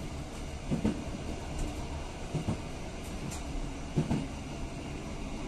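Passenger train running along the rails: a steady low rumble of wheels and carriage, with a few brief knocks.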